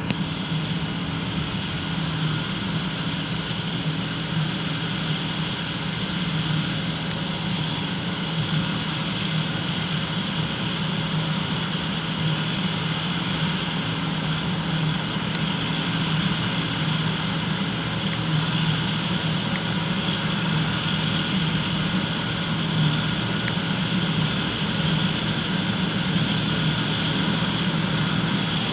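John Deere 9580 WTS combine harvester running steadily, a continuous deep engine drone with machinery noise over it, growing slightly louder in the second half.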